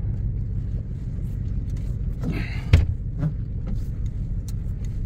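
Dodge Ram pickup's engine idling with a steady low rumble, heard from inside the cab, on a truck that has been stalling with crankshaft position sensor codes stored. A single sharp knock sounds a little under three seconds in.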